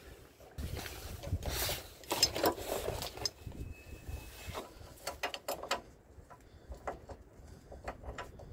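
Hand tools worked on the van's front suspension: metal rattling and scraping for the first few seconds as the ball joint separator is handled, then a ratchet wrench clicking in short quick runs on a suspension nut.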